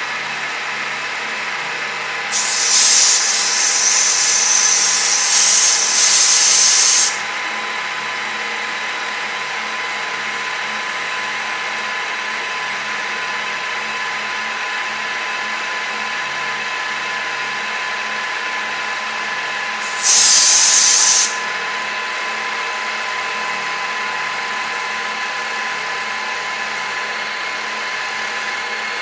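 TOS FN20 milling machine, CNC-driven, running steadily as it mills a flange, a whine of several steady tones. Two loud bursts of hiss come over it: one of about four and a half seconds, starting some two seconds in, and a shorter one of about a second near the twenty-second mark.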